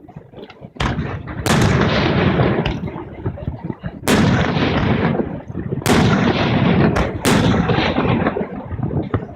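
Fireworks shells bursting: about seven sharp bangs at uneven intervals, the biggest ones trailing off in a long rumble.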